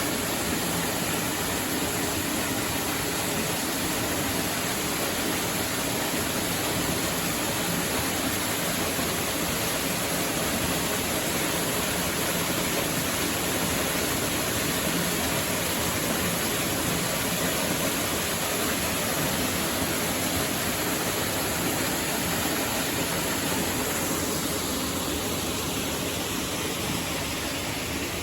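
Steady rush of a waterfall's water, a little quieter and duller near the end.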